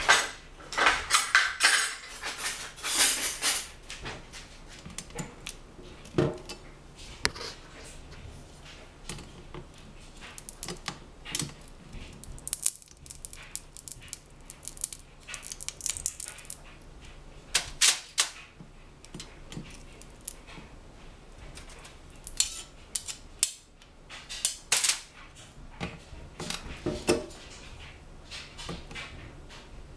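A metal spatula clinking and scraping against a glass baking dish as sticky candied orange slices are lifted out, with scattered clicks and clatter throughout, busiest in the first few seconds.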